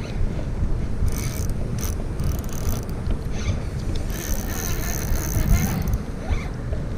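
Spinning reel being cranked to reel in a hooked fish: a mechanical whirr in three stretches, the longest from about four to six seconds in. Under it is a steady low rumble of wind on the microphone.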